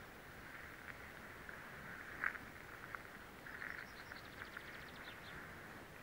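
Faint birdsong: scattered short chirps over a steady chirring background, with a rapid trill of quick high notes, falling slightly in pitch, from about three and a half to five seconds in.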